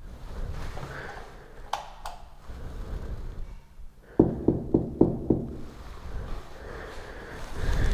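Knuckles knocking on a wooden apartment door: a quick run of about five knocks a little past the middle, with a few light clicks earlier and a dull thump near the end.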